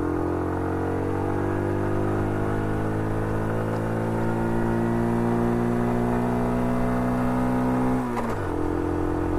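Car engine sound running steadily, its pitch slowly climbing, then dropping quickly about eight seconds in and holding level.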